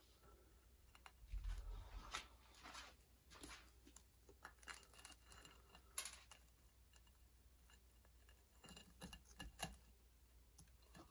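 Faint, scattered crisp scratches and taps of a toasted garlic bread slice being handled and propped into a glass bowl of spaghetti, with a soft low bump about a second and a half in.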